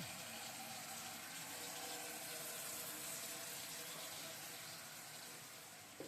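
Water running steadily from a tap, fading slightly toward the end.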